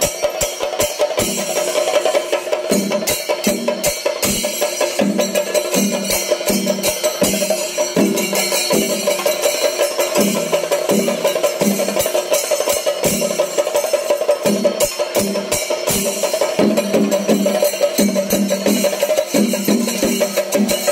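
Percussion-led music: fast, dense stick drumming with a regular deeper beat and a sustained tone held over it.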